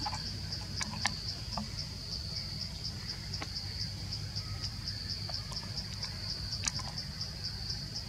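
A forest insect calling steadily, a high-pitched buzz pulsing about four times a second. A few sharp clicks sound over it, the loudest near seven seconds in.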